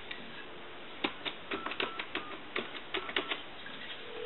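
Touch-tone keypad of an Empress desk telephone being dialed: a quick run of button clicks over about two seconds, with faint tones among them. A steady line tone rises in near the end as the call goes through.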